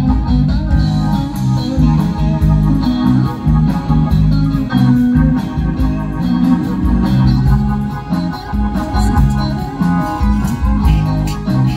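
Band music led by sustained organ chords that change every second or so, over a steady drumbeat.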